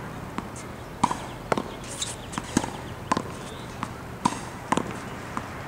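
Tennis ball being hit with a racquet against a practice wall: a rally of sharp pops from the strikes, the rebounds off the wall and the bounces on the hard court, roughly two a second from about a second in.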